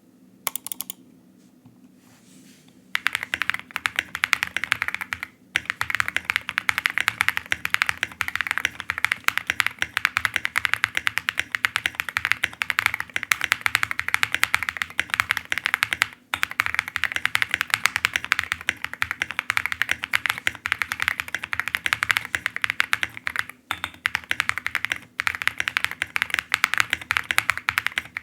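Fast, continuous typing on a custom mechanical keyboard (Jelly Epoch case with Creamsicles linear switches, Durock v2 stabilizers and Maxkey keycaps), a rapid stream of key clicks. A few stray keystrokes come first, then typing runs steadily from about three seconds in, pausing briefly a few times.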